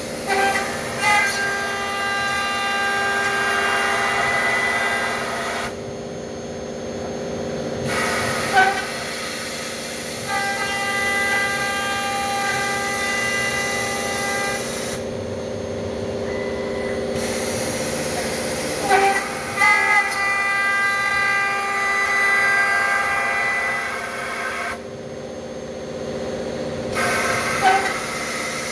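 CNC lock-milling machine milling a thermal-break aluminium window profile: a steady high whine with several tones over a hiss, over a lower steady hum. The whine and hiss stop for about two seconds three times, evenly spaced, while the hum carries on.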